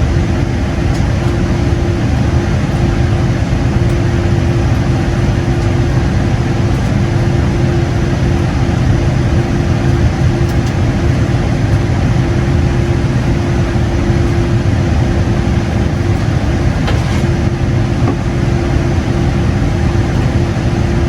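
Steady cabin noise inside a Boeing 787-8 taxiing after landing: a low rumble with a steady hum running through it.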